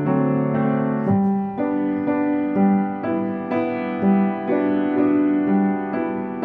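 Background piano music: a slow, gentle melody of notes about twice a second over held bass notes.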